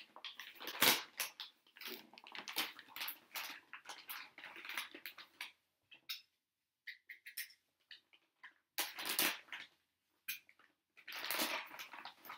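Plastic parts bag crinkling and rustling as it is opened and handled, in irregular bursts with a short lull in the middle.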